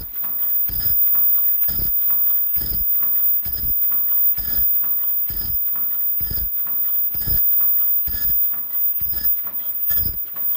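Automatic disposable face mask making machine running, with a regular knocking stroke a little faster than once a second over continuous mechanical clatter from its rollers and belts.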